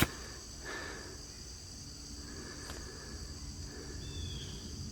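Steady high-pitched drone of an insect chorus, with one sharp click right at the start and a short falling chirp near the end.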